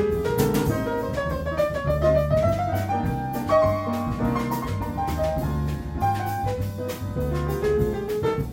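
Jazz piano trio playing: a piano melody runs over a walking bass line, with cymbals and drums keeping time.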